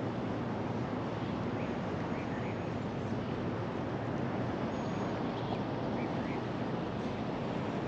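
Steady outdoor ambient rush, even and unchanging, with a few faint short high chirps scattered through it.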